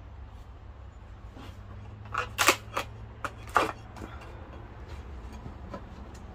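Sharp cracks and snaps of western red cedar as a pry bar wedges chainsaw-cut pieces out of a carving, about five in a quick cluster between two and four seconds in, with a few fainter ticks later. A low steady hum sits underneath.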